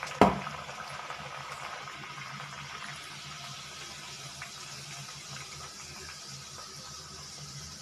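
Wheat-flour puri deep-frying in hot oil in an iron kadhai: a steady sizzling hiss, with one sharp knock just after the start.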